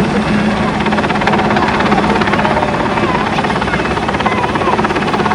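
A helicopter flying close by: loud, steady rotor and engine noise with a fast, even pulse.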